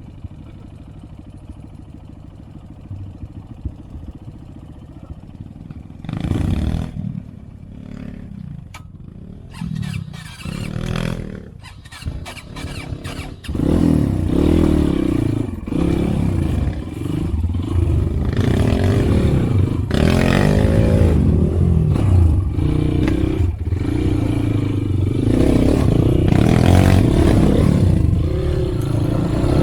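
Trail motorcycle engine at first running low and quietly, with a few short revs, then revving hard and continuously from about halfway through, its pitch rising and falling with the throttle, with some clatter.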